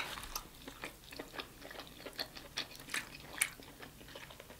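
Close-miked chewing of sauce-coated seafood: small, irregular wet mouth clicks and smacks, with one louder smack about three and a half seconds in.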